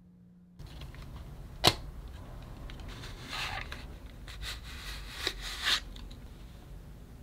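Handling of a cardboard box: a single sharp click near the start, then several short scrapes and rustles as a disposable film camera slides out of its cardboard sleeve.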